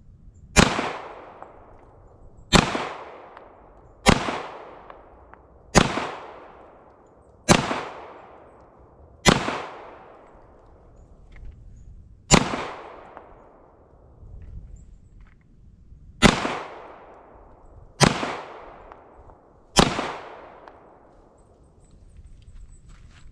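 Ten aimed shots from a CZ Shadow 2 9mm pistol, fired singly about every one and a half to two seconds, with two longer pauses in the middle. Each crack trails off in an echo.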